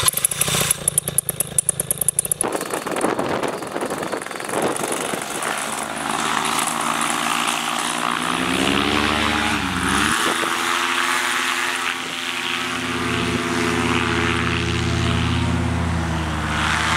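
Paramotor engine and propeller throttled up for a takeoff run. It is choppy and uneven at first, climbs in pitch, dips briefly about ten seconds in, then holds steady at high power.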